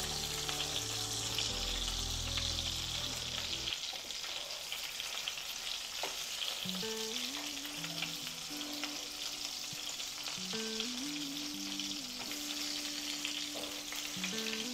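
Ground-beef patties sizzling steadily as they brown in oil in a skillet, with a metal spatula now and then scraping and tapping the pan as they are turned over.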